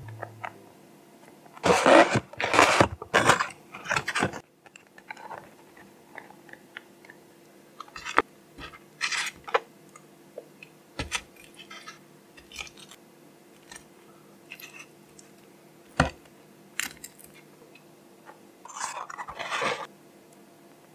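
Handling takeout fried chicken: a cardboard box is opened with loud rustling, then metal tongs click and crispy fried chicken crackles as the pieces are lifted out and set down, one by one. Near the end a paper box is opened with another rustle.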